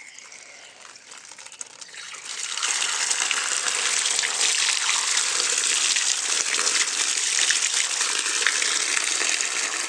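Water gushing steadily from a rainwater tank's outlet, starting about two seconds in. The tank is being run to flush out sediment that built up in it over the rain.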